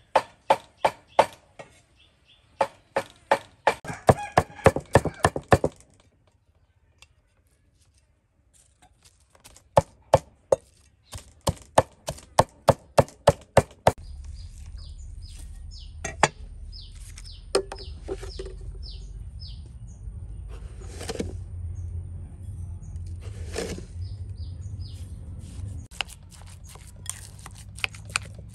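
A knife chopping on a cutting board in quick runs of about four or five strokes a second, pausing for a few seconds between runs. From about halfway the chopping gives way to a low steady rumble with a faint high whine, scattered chirps and an occasional knock.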